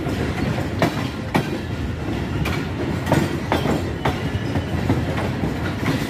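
Passenger train coaches rolling on the track, with a steady rumble and irregular sharp clicks of the wheels passing over rail joints as the train runs into the station.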